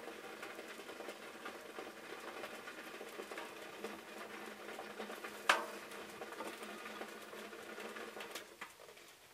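Food sizzling in a pan, a steady sizzle dotted with small crackles, with one sharp snap about five and a half seconds in.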